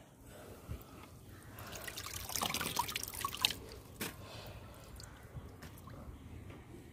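Water splashing and dripping as a hand net is worked through a tank of water, busiest between about two and three and a half seconds in, with a few sharp drips or clicks.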